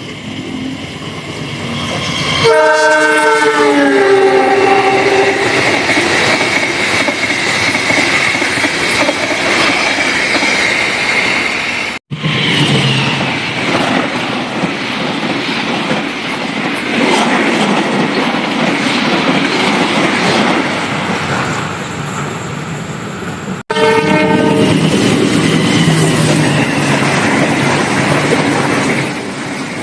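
Express passenger train passing at speed: the locomotive's multi-tone horn sounds and falls in pitch as it goes by, followed by a loud, steady rush of wheels on rail. After an abrupt cut another passing run follows, and near the end the horn blows again.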